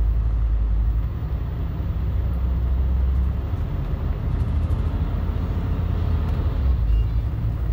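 Volvo D10A-285 diesel engine of a Volvo Super Olympian double-decker bus pulling along the street, heard on board as a steady low drone that eases about a second in and builds again about three seconds in. The radiator cooling fan adds its loud noise.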